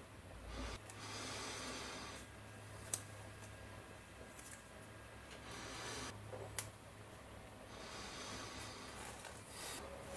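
Small plastic model-kit parts being handled: soft rubbing and rustling, with two sharp plastic clicks about three seconds apart.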